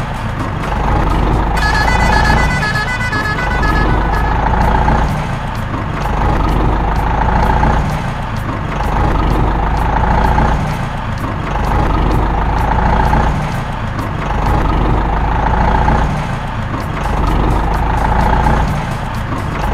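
Heavy truck engine sound with a low rumble that swells and fades in a regular cycle about every two and a half seconds. A string of short high beeps comes in about two seconds in.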